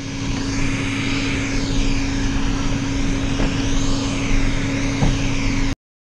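WYZE robot vacuum running, heard from a camera mounted on top of its lidar unit: a steady motor drone with a constant hum and a couple of light knocks. It cuts off suddenly near the end.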